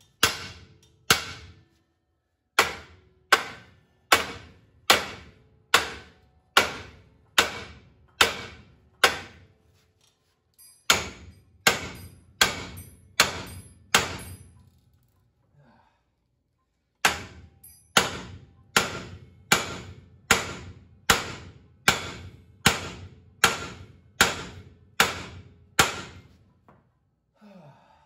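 Hand sledgehammer striking the old steel front spindle of a 1970 Chevy C10, hard metal-on-metal blows with a short ring, a bit over one a second in three runs with brief pauses between. The spindle is being beaten to break loose a stuck lower ball joint.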